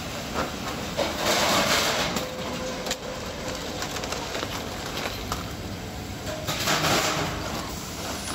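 Scrap circuit boards clattering and scraping as they are handled and shifted in a pile, in two louder spells about a second in and near the end, over a steady background noise.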